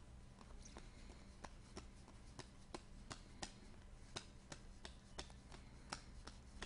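Faint, quick clicks and taps, about two to three a second, from trading cards being flipped through by hand one after another.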